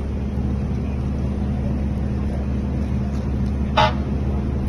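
A motor running with a steady low hum, and one short sharp crack about four seconds in.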